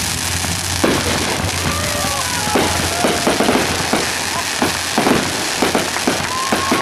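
Fireworks going off: a quick run of sharp bangs and crackles starting about a second in, over a steady rushing noise.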